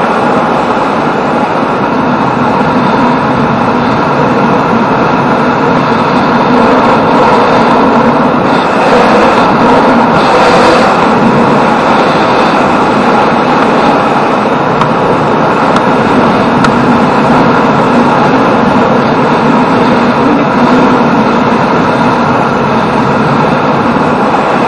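Yamaha Jupiter MX 135 motorcycle underway at a steady cruise: loud, steady rush of wind over the handlebar-mounted camera microphone mixed with the engine's running note.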